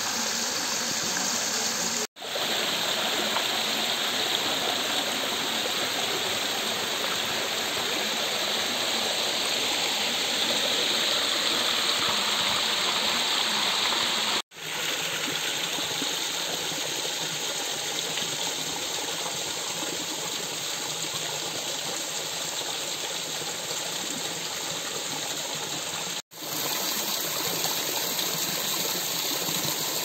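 Water rushing and splashing over rocks in a stream below a waterfall, a steady even rush. It cuts out for an instant three times.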